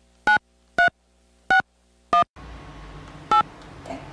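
Touch-tone keypad beeps from a smartphone as a number is dialled: five short two-note beeps, irregularly spaced about half a second to a second apart.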